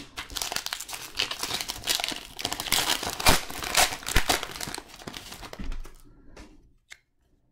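Wrapper of an Upper Deck hockey card pack crinkling and crackling as it is torn open and the cards are pulled out. The crackle fades off about five and a half seconds in.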